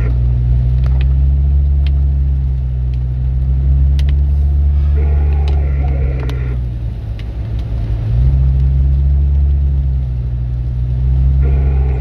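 Steady low engine and road rumble heard inside a Mercedes-Benz car driving slowly on an icy, sleet-covered road. The rumble eases around seven seconds in and picks up again just after eight. A short sound with several tones sits over it for about a second and a half, about five seconds in.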